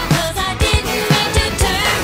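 Pop music with a steady beat and a singing voice.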